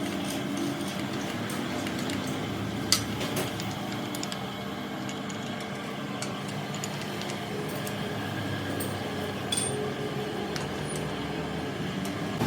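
Metal lathe running steadily with a steady hum, and a sharp metallic click about three seconds in.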